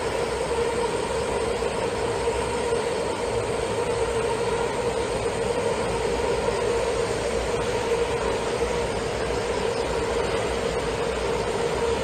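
Taoyuan Airport MRT train running very slowly on curved track, heard as a steady tonal drone near 460 Hz with a fainter tone at about twice that, over a rumbling hiss. This is the rail corrugation noise that is taken to come from curved track on resilient baseplates.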